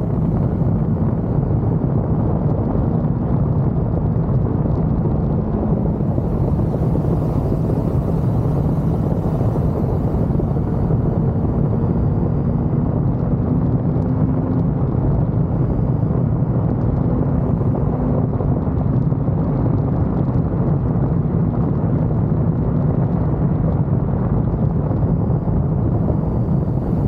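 Kawasaki Z900's inline-four engine running steadily under way on the moving bike, its pitch drifting gently up and down with throttle, over a heavy low rumble of wind and road noise.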